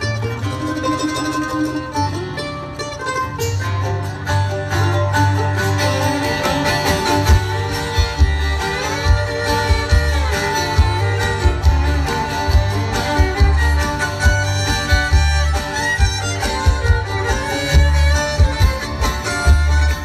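Live bluegrass band playing an instrumental, with the fiddle carrying the melody over banjo, guitar and mandolin and a steady upright bass beat.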